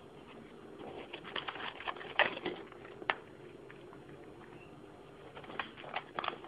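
A cat eating Iams Tuna & Herring cat food from a bowl: bursts of sharp crunches and clicks as it chews, from about a second in to three seconds, then again near the end, with a quieter pause between.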